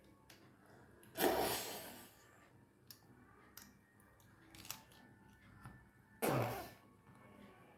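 Two short coughs about five seconds apart, with faint small clicks in between.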